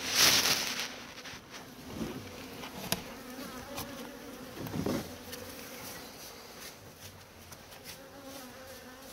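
Honeybee colony buzzing steadily, its exposed cluster disturbed during a cutout. A short loud rush of noise comes right at the start, with a sharp click about three seconds in and a brief thud near five seconds.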